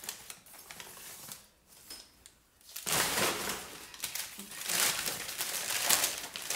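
Packing material crinkling and rustling as dishes are unwrapped from a moving box: soft at first, then loud and continuous from about three seconds in.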